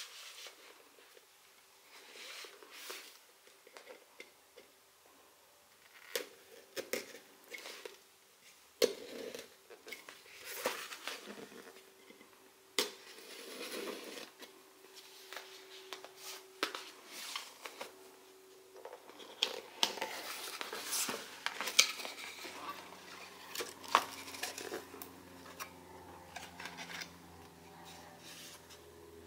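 Snap-off utility knife blade slicing and scraping through the tape on a cardboard mailer box, in short strokes and clicks. In the second half the box flaps are pulled open and paper and cards are handled, with denser rustling and tearing.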